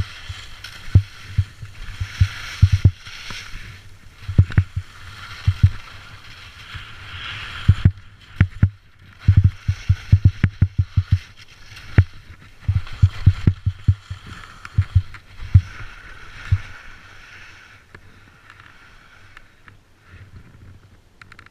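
Skis scraping and skidding on hard-packed snow through a series of turns, with many sharp low thumps coming in clusters; both ease off over the last few seconds.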